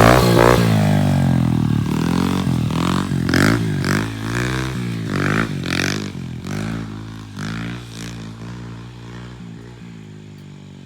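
Off-road engine revving up and down as the machine rides the track, loudest at first and fading steadily as it pulls away.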